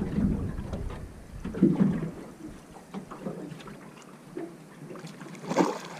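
Water slapping against the hull of a small boat, with wind rumbling on the microphone that drops away about two seconds in. One sharper, brighter knock or splash comes near the end.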